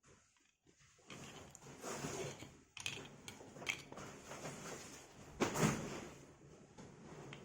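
Hands handling wires and a plastic housing: irregular scraping and rustling with several clicks and knocks, the loudest knock about five and a half seconds in, as the wires are worked through a tight-fitting hole.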